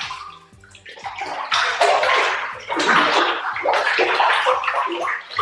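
Water thickened with slime-bath gel sloshing in a bathtub as bodies move in it, in irregular surges that get louder about a second and a half in.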